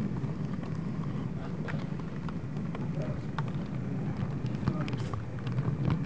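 Model trains running on a club layout: a steady low rumble scattered with many small sharp clicks, under indistinct voices in the room.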